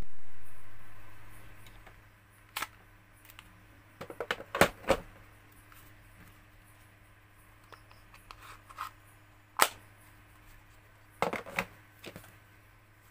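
Sharp hard-plastic clicks and clacks, in a few short clusters, as a cordless drill and its 20V lithium-ion battery packs are handled and set into a moulded plastic carrying case, over a faint steady low hum.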